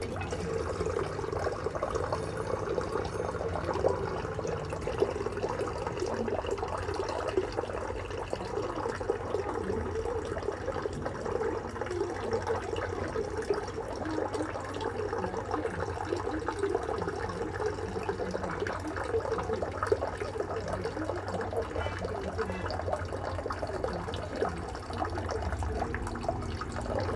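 Small water fountain running, water trickling and splashing steadily over a steady low hum.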